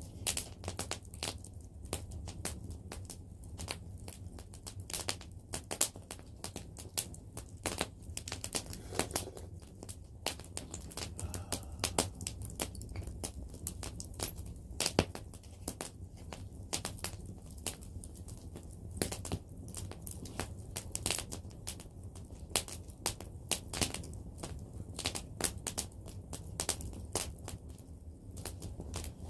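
Small wood fire crackling: sharp, irregular snaps several times a second over a low steady rumble.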